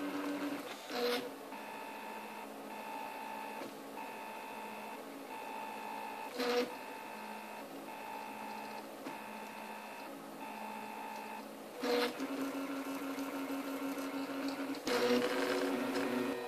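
Printrbot 3D printer's stepper motors whining in steady pitched tones as the print head moves, with a run of short, evenly repeated strokes through the middle and brief louder moves about a second in, about six seconds in and about twelve seconds in.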